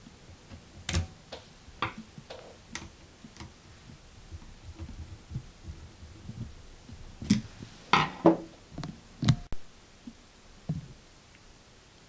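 Small clicks and knocks of a screwdriver and metal parts as the retaining screw of an unloader valve is driven into a compressor pressure switch, scattered through, with a run of louder clicks and taps about seven to nine seconds in.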